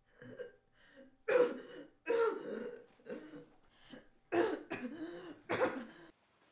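A person coughing over and over in rough fits, the four loudest coughs coming about one, two, four and five and a half seconds in, with fainter coughs between.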